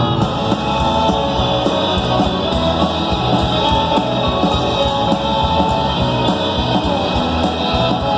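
Live rock band playing an instrumental passage: electric guitar over bass and a steady drum beat, with no singing.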